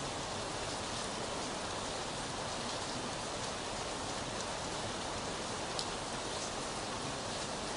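Steady rain: an even hiss with faint scattered drop ticks and one sharper tick near the end.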